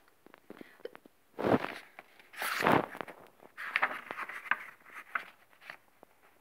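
Paper pages of a hardcover book being turned by hand. There are two louder swishes about one and a half and two and a half seconds in, then lighter rustling as a page is flipped over.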